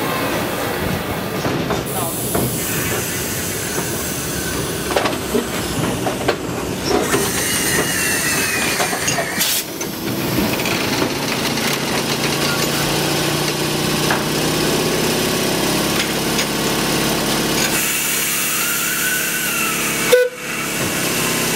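Model railway exhibition hall ambience: a steady wash of background noise with a murmur of visitors' voices and train sounds from the layouts, including a few faint gliding tones. The sound changes abruptly twice, about ten and twenty seconds in.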